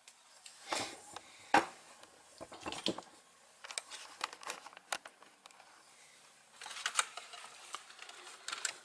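Handling noises of jumper wires and a small circuit board: scattered light clicks and short rustles, with a cluster of clicks about a second in and again near seven seconds.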